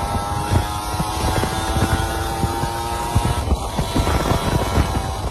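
Two-stroke motorcycle engine idling with an uneven, crackling run of exhaust pops.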